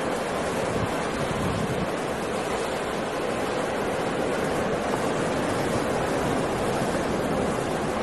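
Heavy surf of a rough, stormy sea: breaking waves in a steady, unbroken rush, with wind.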